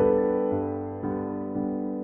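Background piano music: gentle keyboard notes sounding one after another, about two a second, with a low bass note coming in about half a second in.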